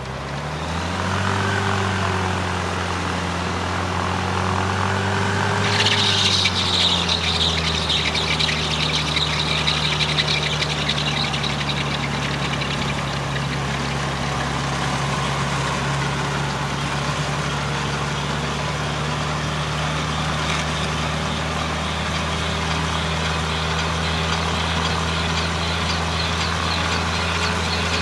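Yamaha 150 hp aircraft-conversion engine on a gyrocopter, turning its propeller through a Mohawk Silent Drive reduction drive, running on the ground. Its pitch rises in the first second and holds. A brighter hiss joins about six seconds in, and about a second later the engine drops to a lower, steady idle.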